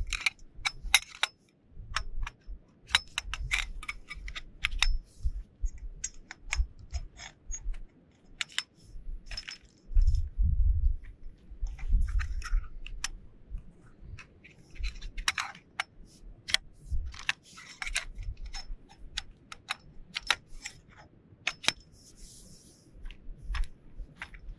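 Sectioned metal poles of a camping cot being unfolded and fitted together: a long run of sharp metallic clicks and clinks as the sections knock and snap into place. Bouts of low rumble on the microphone come and go, strongest about ten seconds in.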